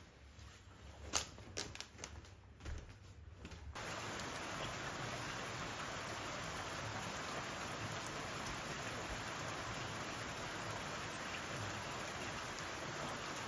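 Steady rain falling on a tiled roof and wet pavement, beginning abruptly about four seconds in. Before it, a few light knocks and taps sound in a small room.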